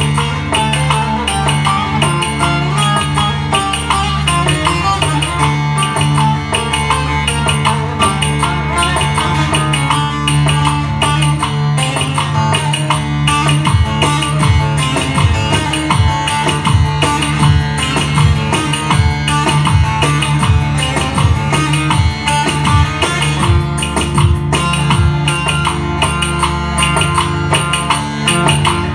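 Bağlama (long-necked Turkish saz) playing an instrumental Ankara-style folk dance tune (oyun havası) over drum and tambourine backing, with a deeper beat coming in about halfway through.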